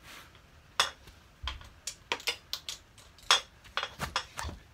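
Ratchet, 14 mm socket and extension bar clinking as they are handled and fitted onto a motorcycle's rear shock mounting bolt: a run of irregular sharp metallic clicks and knocks, the loudest about a second in and again just past three seconds.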